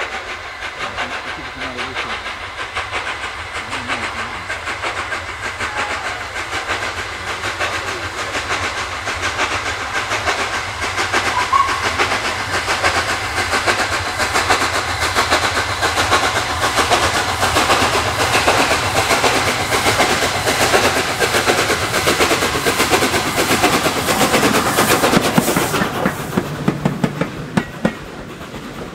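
Steam locomotive Flying Scotsman, an LNER A3 4-6-2 with three cylinders, working hard past with a rapid, even exhaust beat that grows steadily louder to a peak. Near the end the beat drops away and the coaches' wheels click over the rail joints.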